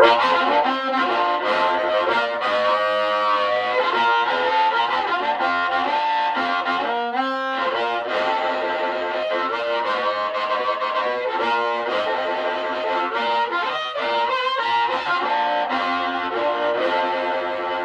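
Amplified harmonica played into a bullet microphone with a CR crystal element and through a Kalamazoo Model 2 amp turned up to about six. The tone is chordy, with bends, and breaks up (overdrives).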